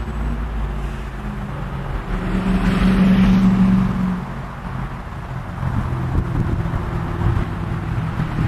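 Engine running with a steady low rumble. It swells louder about three seconds in and eases off again after about four seconds.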